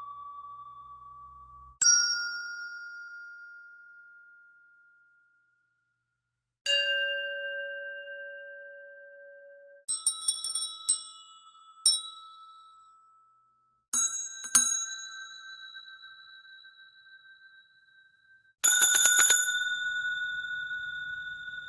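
AI-generated hotel desk service bell dings, each ringing out and slowly fading, at a different pitch each time. Single dings come about two and seven seconds in. Then come repeated strikes: a few quick dings around ten to twelve seconds, two more near fourteen seconds, and a rapid flurry of strikes about nineteen seconds in that rings on.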